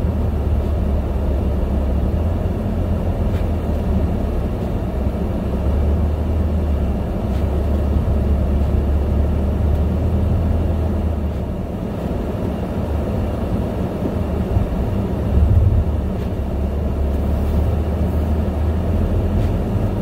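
Steady low road and engine rumble inside a moving car's cabin, its tyres running on a snow-covered road.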